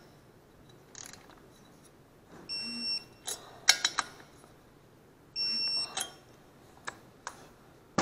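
Digital torque wrench beeping twice, each a steady half-second beep, as the bolts reach the set torque of 15 foot-pounds. Short sharp clicks of the wrench follow each beep.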